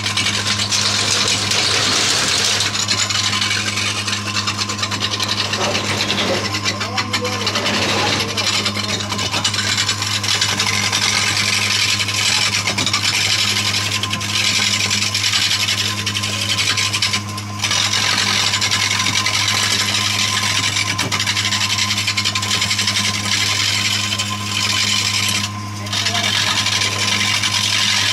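A motor-driven woodworking machine running with a steady hum while a tool scrapes and rasps continuously against the wood being shaped. The scraping briefly lets up twice in the second half.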